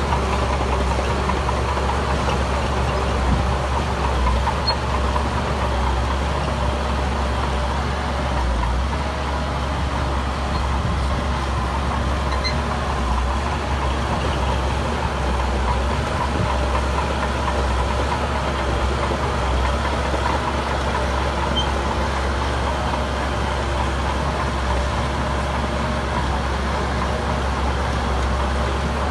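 Heavy diesel engine of earthmoving machinery running at a steady speed.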